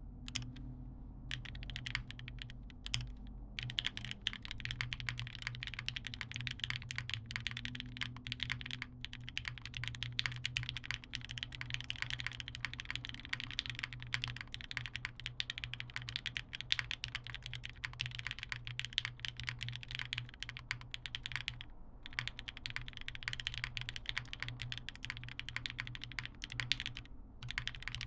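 Typing on a TGR Tomo mechanical keyboard with broken-in Cherry MX Red linear switches, a carbon fibre plate, GMK keycaps and no case foam, heard through a phone microphone. A few single keystrokes at first, then fast continuous typing from a few seconds in, with two brief pauses later on.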